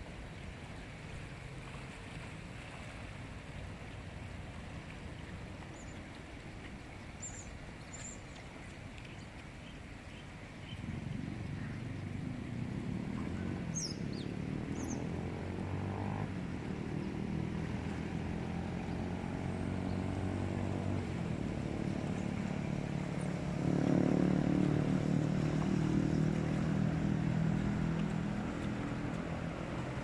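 A low, steady engine drone starts about ten seconds in and grows louder, loudest a little past the middle, over a constant background hiss. A few brief high chirps come in the first half.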